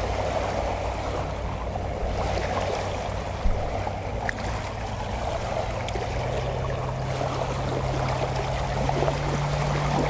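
Small waves lapping under the steady drone of a small boat's motor out on the water; the motor's pitch rises a little about six seconds in.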